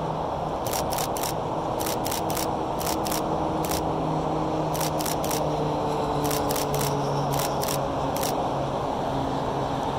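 DSLR shutter firing in quick bursts of two or three sharp clicks, again and again until a little past eight seconds in, over a steady low rumble.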